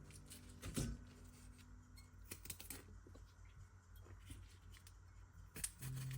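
Sparse small clicks and taps of kitchen utensils being handled, with a faint held music note dying away in the first two seconds and music coming back in near the end.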